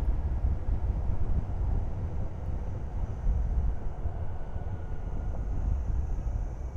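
Wind buffeting the microphone on a moving motorcycle, a steady low rushing, with faint vehicle sound underneath; it eases a little near the end.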